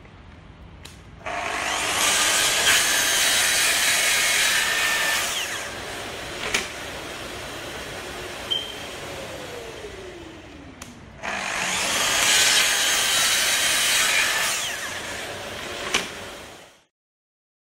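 Festool HK 55 circular saw running on its FSK guide rail and cutting through a timber floorboard, starting suddenly and loud. The saw then runs more quietly, its whine falling in pitch as it winds down. About eleven seconds in it starts again for a second loud burst of cutting, which fades and stops near the end.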